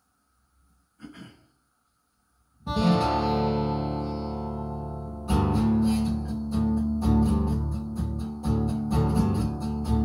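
Acoustic guitar: after a short quiet, a single chord is strummed and left to ring out, then steady rhythmic strumming starts about halfway through, the instrumental intro of a song.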